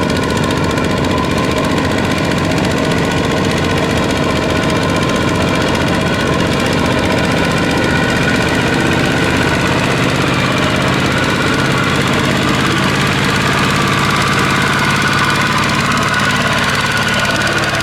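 A tractor engine running steadily as it works a muddy paddy field, its pitch shifting a little about halfway through.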